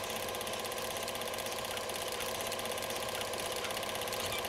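A small machine running steadily, with a rapid, even clatter over a faint steady hum.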